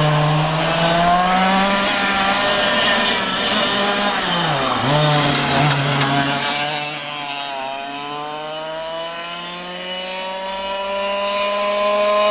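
Racing kart engine running hard on track: its pitch dips sharply about halfway through as the kart slows, then climbs steadily as it accelerates again.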